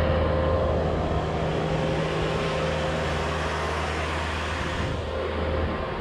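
Bobcat S250 skid-steer loader's diesel engine running steadily, slowly fading as the loader moves off; near the end its deep engine note falls away, leaving a fainter steady whine.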